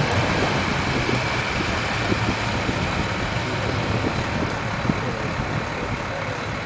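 Boat engine running steadily at an even, low hum.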